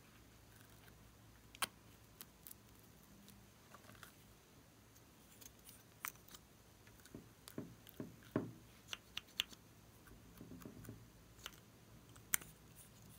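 Faint, scattered small plastic clicks and taps of lip-tint tubes being handled and uncapped, with a few soft low knocks just past the middle.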